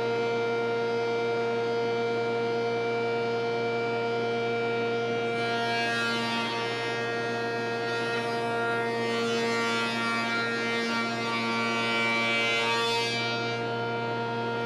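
Spindle shaper running with a steady multi-tone whine. From about five seconds in until near the end, the cutter cuts a raised-panel profile across the end of a small panel fed under the power feeder, adding a rushing hiss of cutting wood.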